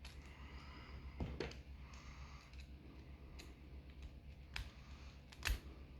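Lock pick and tension wrench working inside a padlock's keyway: faint metal scraping with scattered sharp clicks, the loudest about five and a half seconds in.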